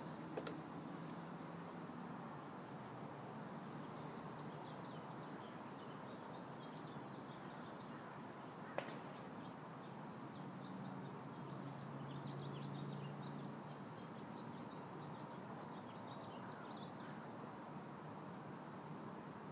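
Faint outdoor ambience: a steady hiss with distant birds chirping now and then, and two sharp clicks, one just after the start and one about nine seconds in.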